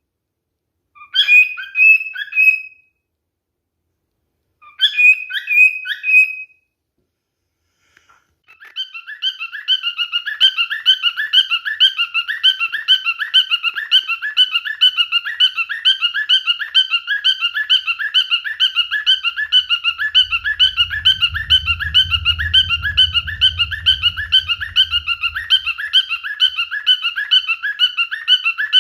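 Male cockatiel calling: two short bursts of whistled calls in the first few seconds, then, after a brief pause, a long unbroken run of rapid, evenly repeated chirping notes, several a second.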